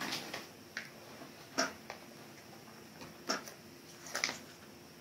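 Foil Pokémon booster pack being handled and opened by hand: a few short crinkles and rustles spaced through an otherwise quiet stretch, the loudest about a second and a half in and again just past three seconds.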